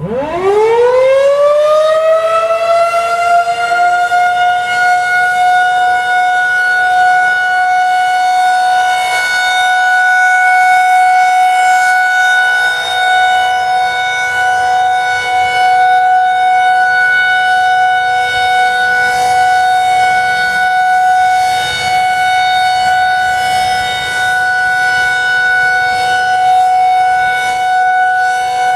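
Federal Signal 2001-SRNB electromechanical outdoor warning siren winding up within about two seconds, then holding a steady single tone: the steady Alert signal of a scheduled siren test.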